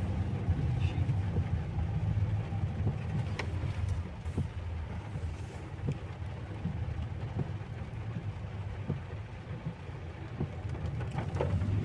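Steady low road rumble of a car driving, heard from inside the cabin, with a few faint ticks.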